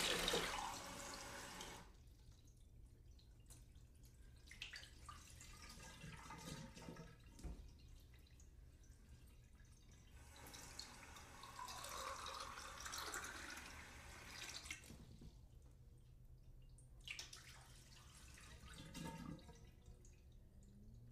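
Water from a sink tap pouring into a glass cup in several separate pours. The first, at the start, is the loudest, and the longest runs from about ten to fifteen seconds in.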